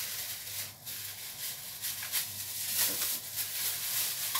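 Steady hiss of kitchen background noise, with a brief break about a second in.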